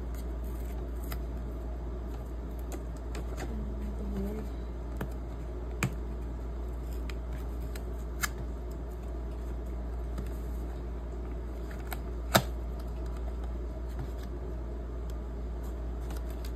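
Hands peeling tape from and handling a cardboard phone-case box: soft rustling and scraping with a few sharp clicks, the loudest about twelve seconds in, over a steady low hum.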